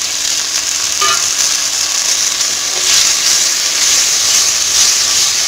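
Freshly added chopped tomatoes sizzling in hot sesame oil in a clay pot as a wooden spatula stirs them, a steady loud frying hiss. There is a brief clink about a second in.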